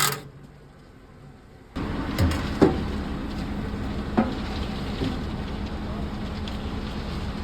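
A steady low engine-like rumble starts abruptly after about a second and a half of quiet, with a few short knocks over it.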